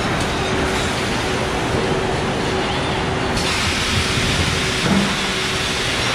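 Truck assembly-line machinery running: a steady mechanical din with a faint constant hum, and a hiss that grows louder about three and a half seconds in. A dull thud comes near the end.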